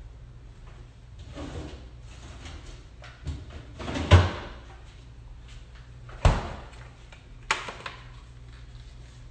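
Kitchen door opened and shut, with three thuds: the loudest about four seconds in, the others about six and seven and a half seconds in, and a little rustling in between.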